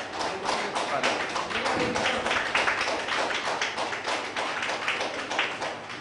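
Audience applauding: many people clapping at once, a dense patter of claps that keeps up steadily.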